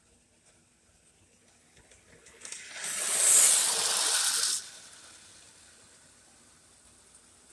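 O gauge model train, a Class 35 Hymek diesel locomotive with a boxcar and caboose, running close past on O27 tinplate track: the rolling rumble of wheels on the metal rails builds over about a second, is loudest for about a second and a half, then drops off sharply as the train moves away.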